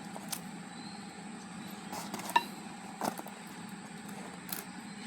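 Five short clicks and taps of engine parts being handled as the valve tappets of a dismantled Kubota M9000 engine are checked for fit in their bores, the sharpest about two and a half seconds in, over a steady background hum.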